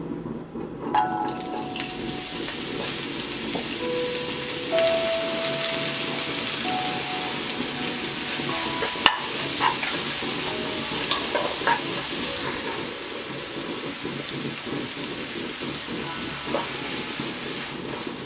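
Julienned bellflower roots sizzling and crackling in hot sesame oil in a nonstick wok as they are stirred with a wooden spatula. The sizzle starts about a second in, as the roots go into the oil, with an occasional sharp tick of the spatula against the pan.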